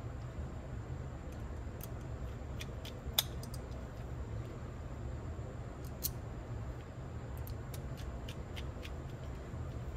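Small, irregular metal clicks and taps of a screwdriver on the parts of a cassette recorder's tape transport mechanism, the sharpest about three seconds in, over a steady low hum.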